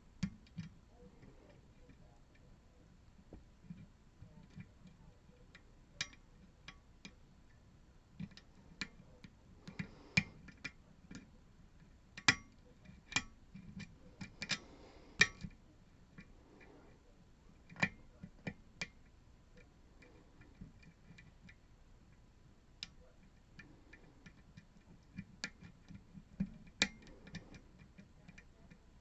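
Irregular small metallic clicks and taps of a lock pick and tension wrench working the pins of a Goal P pin-tumbler lock, with pauses between, busiest in the middle.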